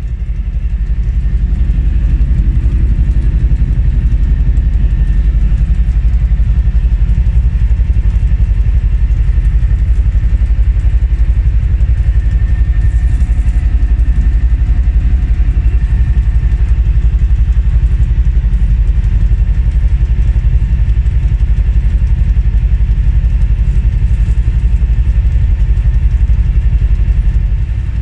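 NoHAB M61 diesel-electric locomotive's EMD 16-567 V16 two-stroke diesel engine running steadily under power, heard from inside the cab: a loud, low, even engine sound with a fast regular pulse.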